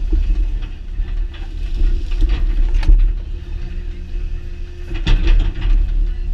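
Doosan excavator's diesel engine and hydraulics running steadily, with a low rumble and a constant hum, as the bucket and thumb are swung. A few sharp knocks and clanks come from the machine, the loudest about three seconds and five seconds in.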